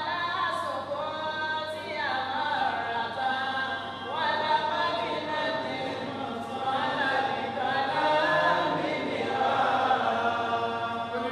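A man's solo voice chanting Quran recitation in a melodic, drawn-out style, holding long notes that rise and fall in pitch.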